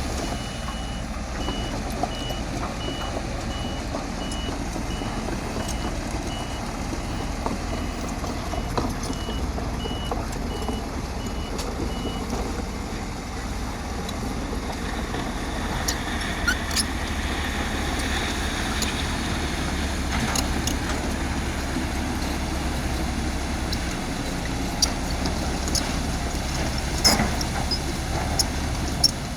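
Bulldozer's diesel engine running steadily as it spreads an aggregate base layer. A reversing alarm beeps repeatedly for the first twelve seconds or so, then stops, and a few sharp metallic clanks come later.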